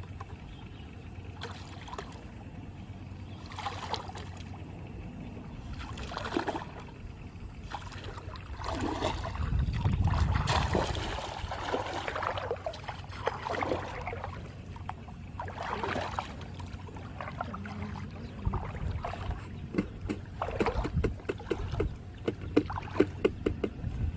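Water splashing and sloshing in irregular bursts, loudest about halfway through, over a steady low hum.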